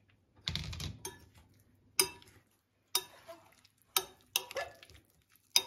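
Boiled broccoli florets tipped from a plastic colander into a glass bowl with a short soft rustle, then a metal spoon stirring them and clinking against the glass about once a second in short ringing taps.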